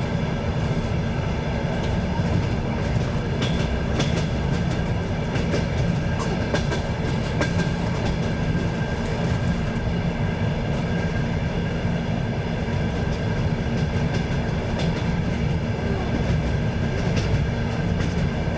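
Train in motion heard from on board: a steady rumble of wheels on the rails, with scattered clicks of the wheels over rail joints and a few steady whining tones above it.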